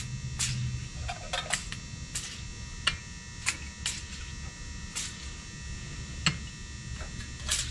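A dozen or so light, irregular metallic clicks and taps as a steel straight edge and feeler gauge are moved and poked along the aluminium deck of a Ford 4.6 2V cylinder head, checking the gasket surface for warpage. A steady electrical hum runs underneath.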